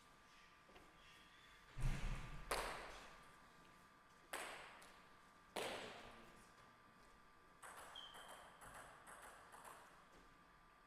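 Table tennis ball bouncing between points: a dull thump about two seconds in, then three sharp taps a second or more apart that ring out in the hall, and a cluster of quicker, lighter taps later on.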